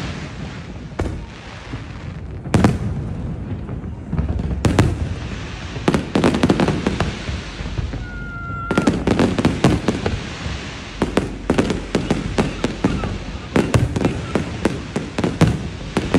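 Fireworks display: a dense, irregular run of bangs and crackles that thickens in the second half, with a short whistling tone about eight seconds in.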